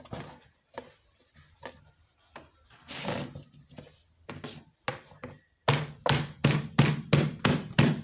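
Herbs being pounded in a cut-open plastic jerry can used as a makeshift mortar. A few scattered knocks come first, then a little past halfway it settles into a steady run of thuds, about four a second.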